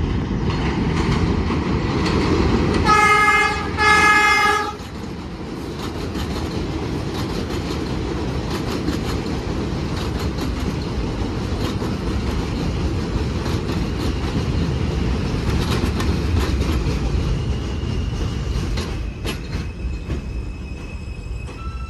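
R160A subway train sounding two short horn blasts, then rolling into the station over elevated track with a loud rumble and rapid clicking of wheels over rail joints. A thin high squeal comes in during the second half as the train brakes.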